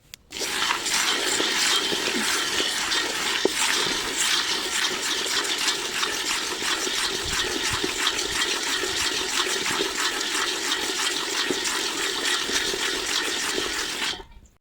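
Raw peanuts rattling and scraping in a hot saucepan as they are stirred during dry roasting: a dense, even clatter of many small clicks that starts and stops abruptly.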